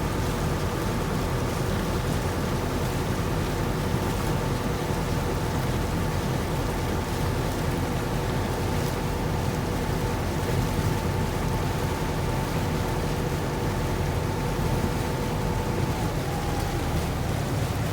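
Sightseeing boat under way, heard from aboard: its engine runs steadily, with a low rumble and a steady whine that shifts slightly in pitch about 16 seconds in, over a continuous hiss of water and wind.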